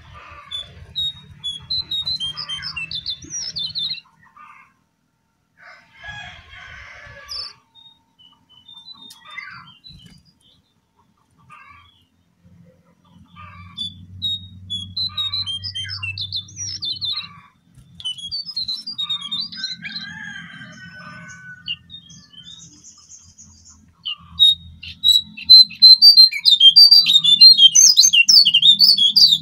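Lesser shortwing (cingcoang coklat, jongkangan) singing short bursts of high chirping phrases with pauses between them. A low hum sits under some of the phrases. About 24 seconds in, the song turns loud, dense and continuous.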